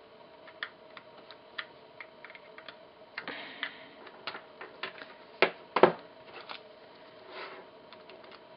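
Scattered light plastic clicks and taps as a small keychain USB-to-dock sync cable is handled and its connectors are plugged into a battery pack and an iPhone. Two sharper clicks a little past halfway are the loudest.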